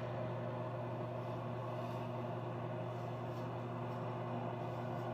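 A steady low mechanical hum made of several held tones, with a few faint soft rustles over it.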